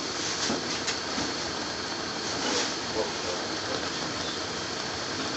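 Curry sauce cooking in a pan over a gas flame: a steady sizzling hiss, with a few light clinks in the first seconds.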